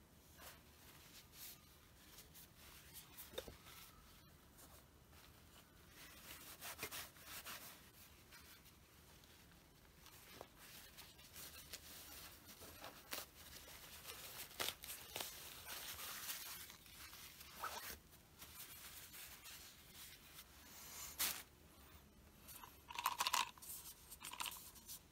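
Quiet rustling and crinkling of a paper towel being folded and smoothed flat on a tabletop, with small clicks of things being set down, then a paper cup being handled near the end.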